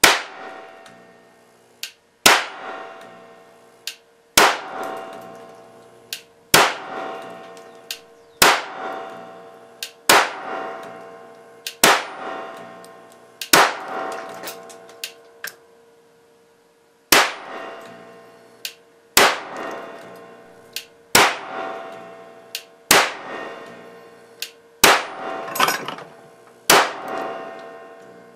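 Repeated sharp cracks of a 6400 V, 70 µF capacitor bank discharging into an old CRT monitor circuit board, about one every two seconds, some fourteen in all, each followed by a ringing decay lasting a second or more. A faint click comes just before most of the cracks.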